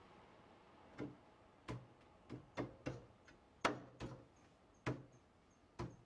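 About nine sharp knocks at uneven intervals, the loudest a little past the middle, from hand-tool woodworking on the desk parts.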